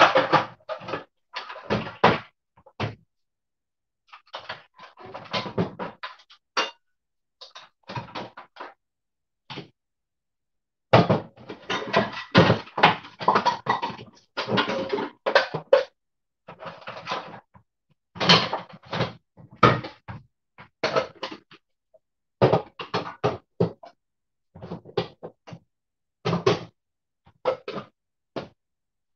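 Kitchen cupboard doors opening and closing and cookware clattering and knocking in irregular bursts, as someone rummages for a pot lid. The sound cuts off abruptly between bursts.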